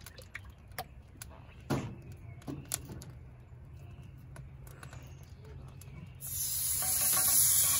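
A few faint clicks and taps, then about six seconds in a loud sizzle starts suddenly as a blackening-seasoned white bass fillet is laid onto the hot buttered and oiled cast iron griddle.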